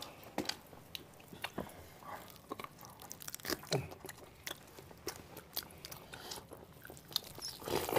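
Person gnawing and chewing a large chunk of boiled pork held in the hands: irregular wet bites, smacks and crunches.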